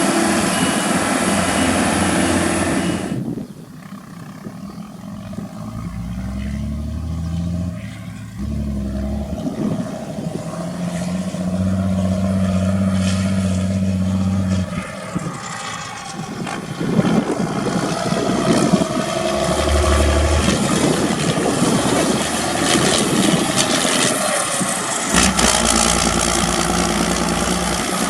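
Heavy farm machinery engines running at harvest, with steady low engine tones. The sound changes abruptly about three seconds in, around the middle and again near the end.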